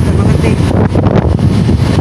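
Loud wind buffeting the microphone of a moving motorcycle, mixed with the bike's engine and road noise.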